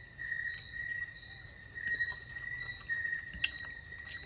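A cricket trilling steadily on one high note in short pulsing runs, with a few faint clicks over it.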